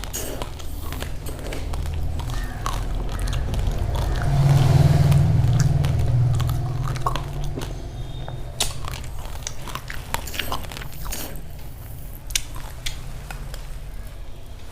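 Close-miked chewing of uncooked raw rice grains: many sharp, irregular crunches as the hard grains are bitten and ground between the teeth. A low rumble swells in the middle.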